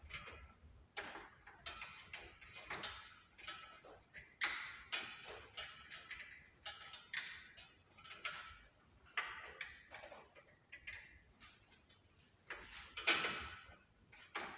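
Irregular metallic clicks, taps and knocks of hand tools being worked on a car's underside, with a louder clatter near the end.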